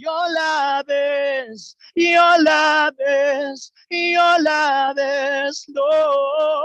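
A single voice singing a worship song unaccompanied: phrases of long held notes with short breaks of silence between them.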